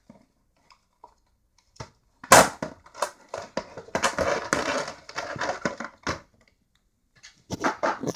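Close handling noise from a model-plane box and its plastic packaging: a sharp knock about two seconds in, then a few seconds of crunching and rubbing, and another short clatter near the end.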